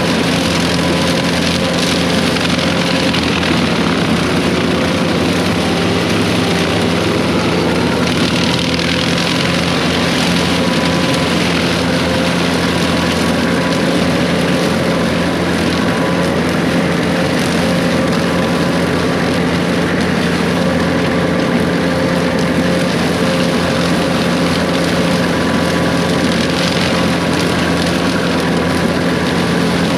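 Case 140 excavator's diesel engine running steadily, a continuous engine drone with a hiss over it and slight swells in level.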